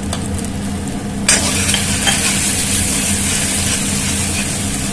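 Ground spices frying in hot oil in a metal kadai as a spoon scrapes them in from a plate and stirs them. About a second in, a loud steady sizzle starts suddenly and keeps on while the spices are stirred.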